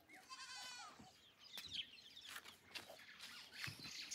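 A domestic chicken gives one drawn-out call shortly after the start. Small birds then chirp faintly and sporadically.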